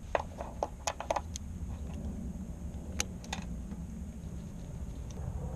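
A handful of light, sharp clicks and clinks of hard objects being handled, bunched in the first second and a half with two more about three seconds in, over a steady low hum.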